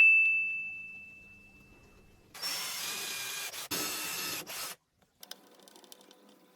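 A bright ding fading away, then a handheld power tool running in two bursts of about a second each, with a short break between them, followed by faint clicks.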